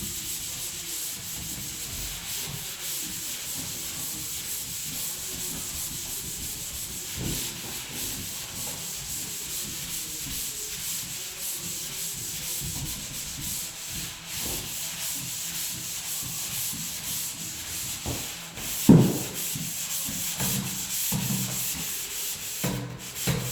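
Dried drywall joint compound being hand-sanded over screw heads, steady back-and-forth scratchy rubbing strokes. A single sharp knock sounds late on.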